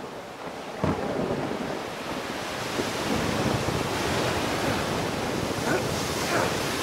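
Storm-at-sea sound effects on a film soundtrack: a steady rush of wind and waves, with one sudden crash about a second in.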